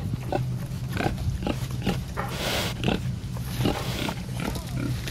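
Pigs chewing and crunching fresh corn ears and husks, in quick irregular crisp crunches with a longer husk-tearing rustle about two and a half seconds in, over a steady low hum.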